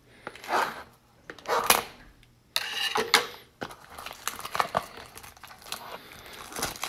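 Wrapper of a 2019 Topps High Tek baseball card pack being torn open and crinkled by hand: a few short rips, a longer tear about two and a half seconds in, then light crackling of the wrapper.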